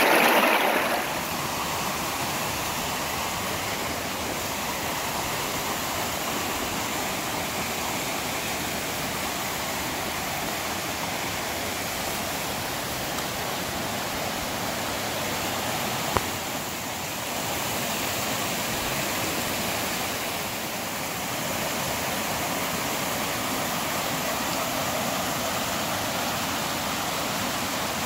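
Stream water flowing steadily, a constant rushing. It is louder for the first second, then holds level, with a single sharp click about 16 seconds in.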